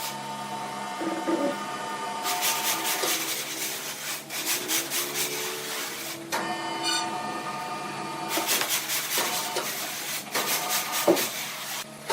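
Sawmill machinery working: a saw cutting through wood in repeated passes of about two seconds each, with a steady machine whine between the cuts.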